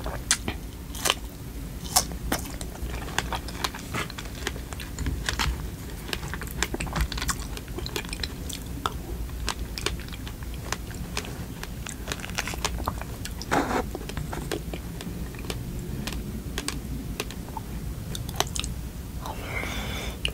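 Biting into and chewing fresh strawberries, a run of many small wet mouth clicks and smacks, with one louder smack about two-thirds of the way through.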